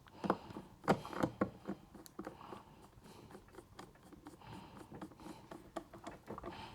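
Light clicks and scrapes of a small screw being driven in by hand on a fencing reel's housing, with a few sharper clicks in the first second and a half, then fainter handling.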